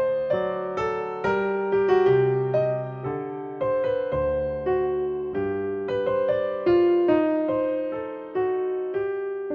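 Background music: a piano melody, notes struck one after another and left to ring.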